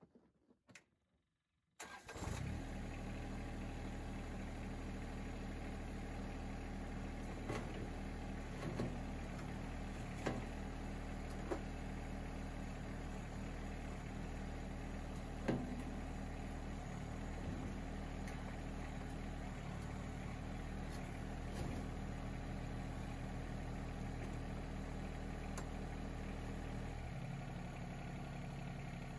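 Yanmar SA324 compact tractor's three-cylinder diesel starting about two seconds in and then idling steadily, with a few light knocks as the loader is worked. The engine note changes near the end.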